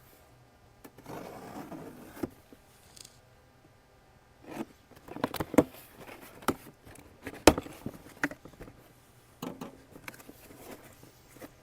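A small box being opened and the parts inside handled: rustling and scraping, then a string of knocks and clicks, the sharpest about seven and a half seconds in.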